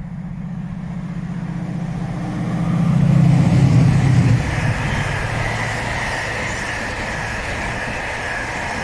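A Class 68 diesel locomotive's V16 engine runs under power as it approaches and passes, building to its loudest about three to four seconds in and dropping away sharply as the locomotive goes by. It is followed by the steady rolling rumble of container flat wagons on the rails, with a thin high tone over it.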